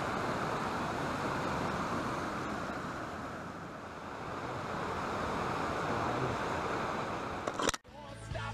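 Steady rush of a mountain river flowing over rocks. Near the end it cuts off suddenly with a click, and music starts.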